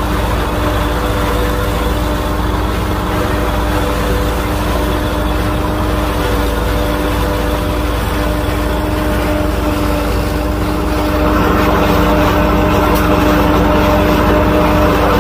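IMT 558 diesel tractor running under load, driving a SIP SK 80 forage harvester that chops drought-dried maize and blows it into a trailer: a steady engine drone with the harvester's hum and the rushing hiss of chopped corn. It grows louder and more rushing about eleven seconds in.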